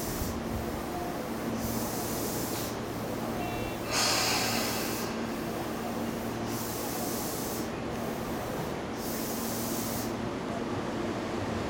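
Tobu 10030-series electric commuter train standing at the platform, its onboard equipment giving a steady low hum under a hiss that swells and fades. About four seconds in, a sharp, louder blast of air hiss comes from the train's pneumatics.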